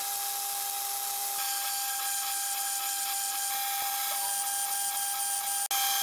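Mill-drill spindle running as an end mill and then a twist drill cut into a steel block: a steady motor whine over cutting hiss. The sound changes abruptly about a second and a half in and drops out for a moment near the end.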